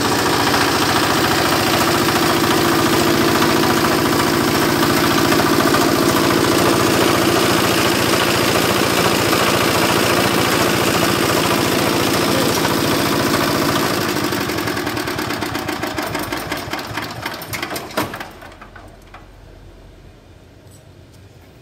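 Fortuner R175 single-cylinder diesel engine running steadily while belt-driving a generator, then shut down about 14 seconds in: its firing beats slow and die away, ending with a last clunk as it stops.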